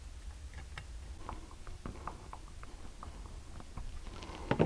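Light clicks and taps of a screwdriver and fingers on the plastic back of a mirror lens and its screwed-on metal socket plate, with a louder knock or two near the end. A steady low hum runs underneath.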